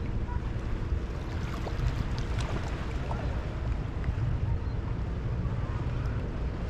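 Small waves lapping and trickling among shoreline rocks, with faint ticks of water, over a steady low wind rumble on the microphone.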